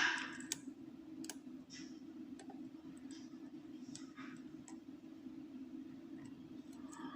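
Lock pick and tension wrench working the pins of a pin-tumbler challenge lock: sparse, irregular light clicks as pins are lifted and set, over a steady low hum.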